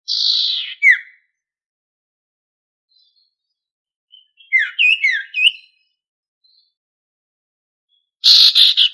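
A sirtu songbird calling in short energetic bursts: a harsh call ending in a quick down-slurred note, then three or four sharp down-slurred chirps a few seconds later, and a harsh rattling burst near the end.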